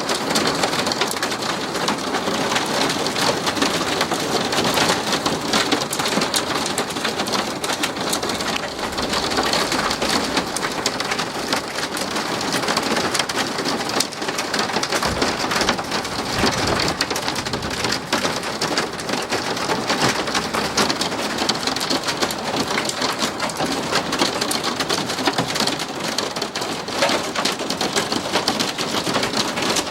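Hail and rain pelting down hard and steadily, a dense clatter of many sharp impacts. A low rumble comes in about halfway through.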